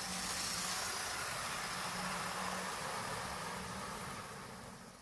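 OO-gauge model locomotives running on track, a Mainline Class 45 hauling coaches and a Class 08 shunter with tank wagons: a steady whirring hum of small electric motors and wheels on rail, with hiss, fading out near the end.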